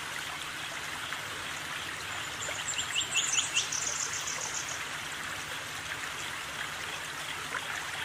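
Steady rushing background hiss, with a quick run of short, high bird chirps about three seconds in.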